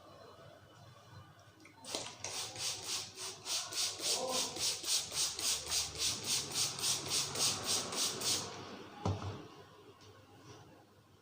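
Hands striking in quick percussive head-massage strokes, about four a second for some six seconds, then one sharp knock with a dull thud about nine seconds in.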